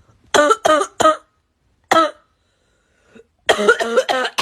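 A person coughing in fits: three coughs in quick succession, a single cough, then a rapid string of coughs near the end. A persistent cough, of the kind that could be a symptom of tuberculosis.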